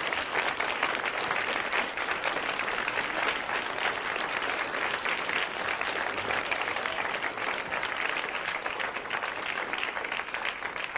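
Audience applauding: dense, steady clapping that starts to die away near the end.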